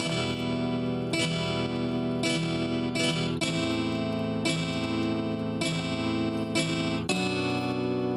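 Background music: strummed acoustic guitar with a new chord or note struck about once a second.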